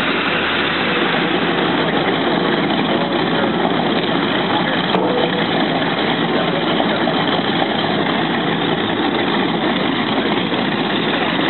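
Steady engine noise, a constant dense drone that holds level without rising or falling.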